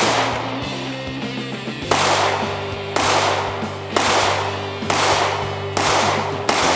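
Handgun shots fired at a steady pace, about one a second and quickening slightly, each crack followed by a long echo, over background music with sustained chords.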